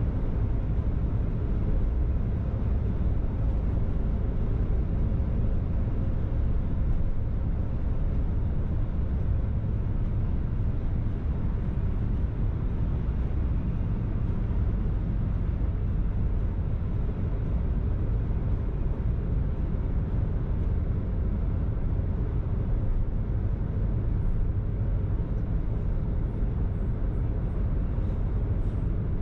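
Car driving at a steady pace: an even low rumble of tyre and engine noise that doesn't change.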